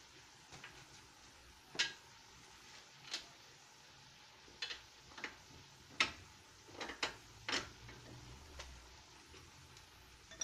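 Scattered sharp metallic clicks and taps, about ten of them at irregular intervals, as metal tools and parts are handled at a car's front wheel hub and strut during a shock absorber change.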